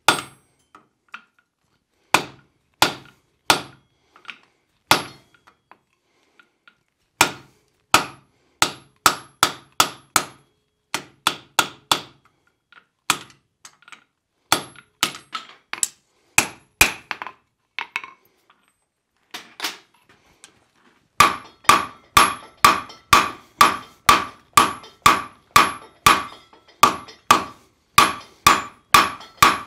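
Hand hammer striking red-hot iron over a hardy cutter set in the anvil, irregular blows with short pauses, cutting off the unwanted bar stock. About 21 seconds in, a steady run of about two blows a second begins, each ringing off the anvil, as the hot bar is hammered on the anvil horn.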